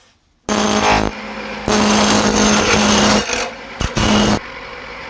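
Gouge cutting into an oak blank spinning on a wood lathe, in three loud stretches of cutting. Near the end the cutting stops and only the lathe's steady running hum is left.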